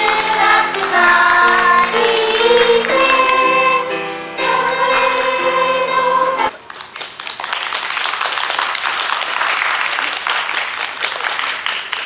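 A group of children singing in chorus over sustained instrumental accompaniment, cut off abruptly about six and a half seconds in; then steady applause, many hands clapping.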